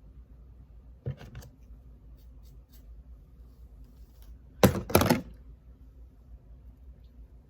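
Handling noise of small objects: a few light clicks about a second in, faint ticks after that, then a louder short cluster of clicks and knocks about four and a half seconds in, over a low steady hum.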